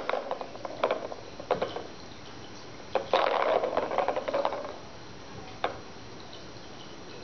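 Plastic circular-track cat toy clattering as a kitten bats at it and sends its ball rolling round the track: scattered sharp clicks, then a burst of fast rattling about three seconds in that lasts over a second, and one more click near the end.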